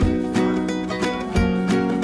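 Background music: plucked-string instruments over a low, regular beat.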